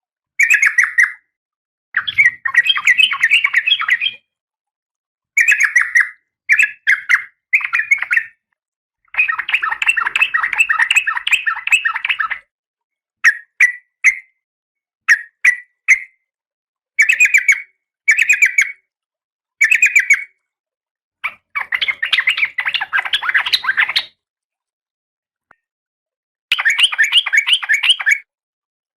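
Female oriental magpie-robin calling in its breeding condition: short bursts of rapid, harsh chattering notes, delivered in phrases of a moment to about three seconds with silent gaps between them.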